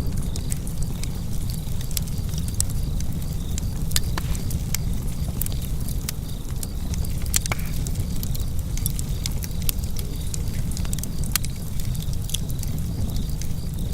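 Wood fire crackling in a fireplace: frequent irregular sharp pops and snaps over a steady low rumble of the burning fire.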